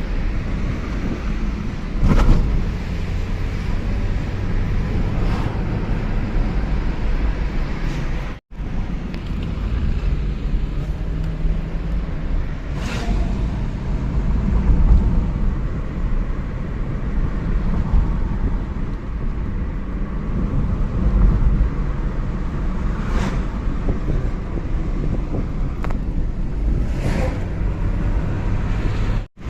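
Toyota car engine running steadily, with a few light clicks and the sound cutting out very briefly twice.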